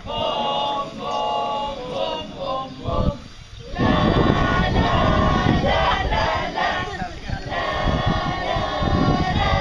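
A group of young voices singing and chanting together in unison. About four seconds in, loud water splashing and churning joins under the voices as they move about in the pool.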